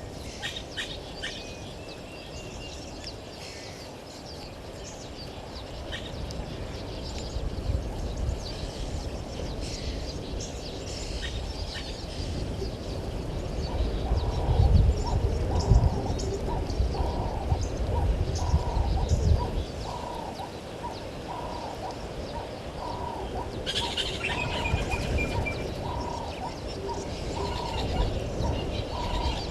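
Wild birds calling: scattered high chirps and twitters, joined about halfway through by a lower call repeated at an even pace, roughly twice a second. Under them is a low rumbling noise that swells in the middle and then eases off.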